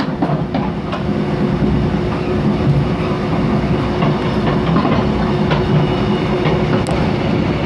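Mugunghwa-ho passenger train heard from inside the coach while running: a steady rumble of wheels on the rails with a constant hum, and a few scattered clacks over rail joints. It grows slightly louder after the first second.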